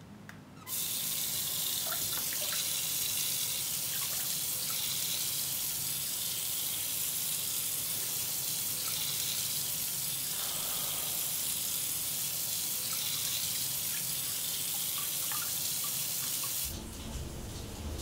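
Bathroom sink tap turned on about a second in and running steadily into the basin, with faint splashes as hands scoop water. It cuts off near the end.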